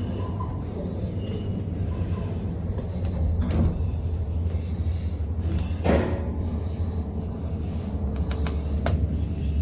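A steady low rumble with a few short knocks, the loudest about six seconds in.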